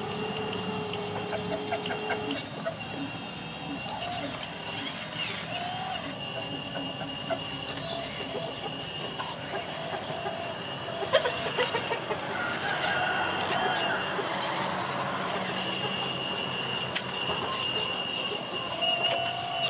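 Hydraulic pump of a radio-controlled Komatsu PC360 scale excavator whining in high steady tones that start and stop as the boom and bucket work a pile of dirt. A sharp knock comes about eleven seconds in.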